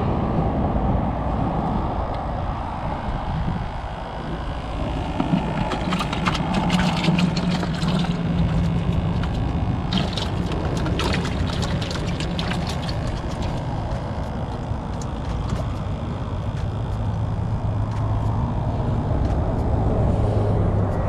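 Steady highway traffic noise with a low hum from passing vehicles. In the middle comes a run of clicks and rattles as a hand rummages in a plastic live-bait bucket.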